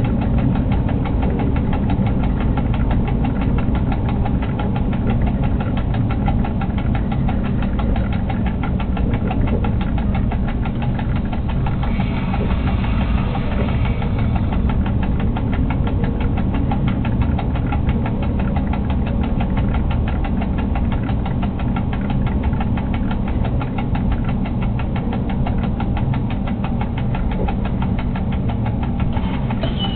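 Freight locomotive heard from inside its cab while under way: a loud, steady low drone with a fast, even pulsing. A brief hiss rises over it about twelve seconds in.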